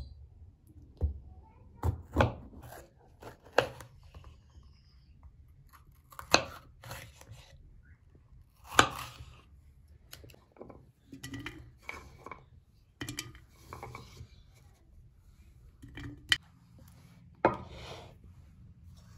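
Food-preparation handling sounds: a knife cutting a yellow bell pepper on a wooden chopping board, with scattered sharp knocks and clicks of kitchenware being handled.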